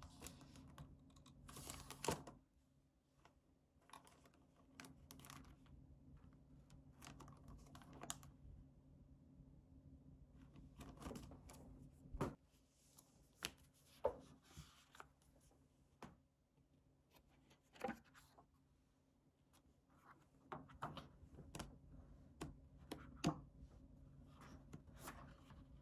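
Paper cards and clear plastic packaging being handled: scattered light taps and clicks with short rustles of paper and plastic, over a faint low hum.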